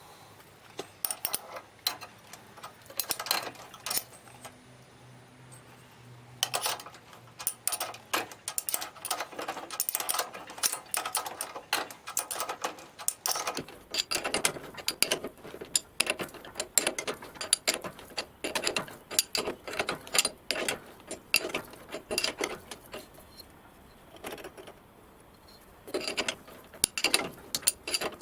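Thread tap being turned by hand in a metal spacer, with irregular clicking and ratcheting as the tap wrench is worked back and forth in short strokes; the tap is turning tighter.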